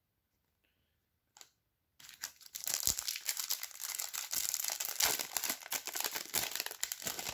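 A trading-card pack's foil wrapper crinkling and tearing as it is opened, starting about two seconds in after a near-silent pause and a single soft tap.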